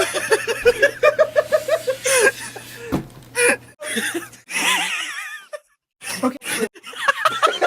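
A person laughing hard in rapid, high-pitched, wheezy bursts. The laughter breaks off completely for about half a second near the end, then starts again.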